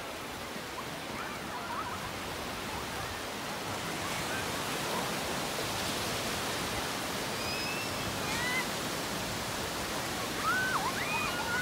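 Small waves breaking and washing up on a sandy beach, a steady rush of surf. Faint distant voices call out now and then, a little louder near the end.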